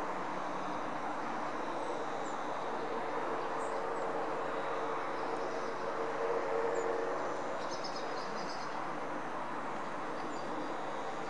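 Cessna Citation SII (S550) business jet's twin turbofan engines on landing approach: a steady jet rush with a faint high whine, growing louder as the jet passes close about six seconds in, then easing off.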